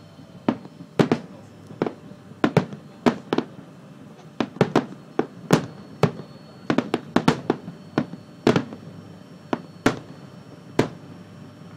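Fireworks shells bursting: about twenty sharp bangs at irregular intervals, some in quick clusters of two or three, the last one shortly before the end.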